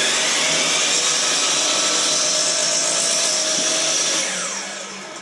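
Electric power saw running as it trims a wooden board. It runs steadily at full speed, then winds down in pitch after being switched off, about four seconds in.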